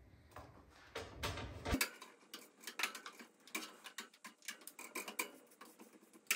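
Metal kitchen tongs clicking and scraping on a toaster-oven baking tray as roasted potatoes are lifted off and dropped into a plastic container: a run of light, irregular taps and clicks.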